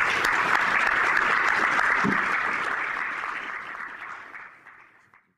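Audience applauding at the end of a talk, dying away over the last two seconds.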